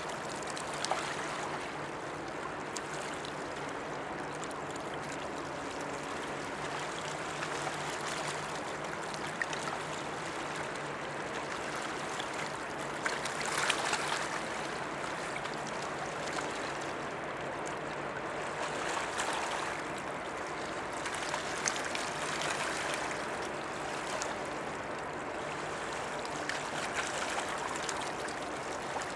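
River water splashing and lapping steadily at the bank, swelling briefly about halfway through, over a low steady hum.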